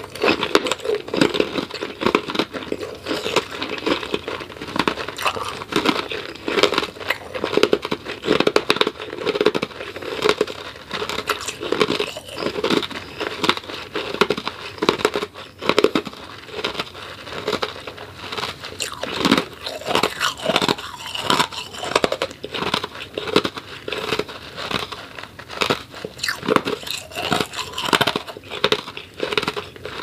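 Half-moon ice cubes being crunched and chewed in a person's mouth: a rapid, continuous run of sharp, brittle crunches, several a second.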